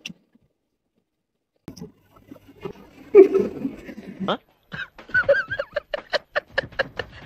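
A man laughing: after about a second and a half of silence come a few short laughs, then from about five seconds in a fast, even run of 'ha' bursts, several a second.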